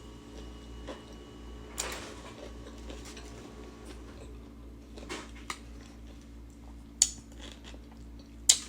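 A few sharp clicks of cutlery against a plate during a meal, the two loudest near the end, over a faint steady hum.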